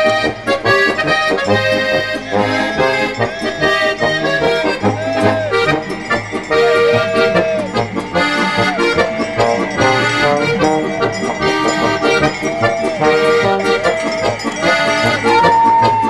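Traditional folk music led by an accordion, with a melody over a steady bass beat.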